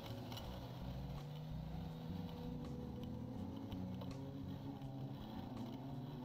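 A motor vehicle engine running, its pitch shifting up and down, with scattered light clicks.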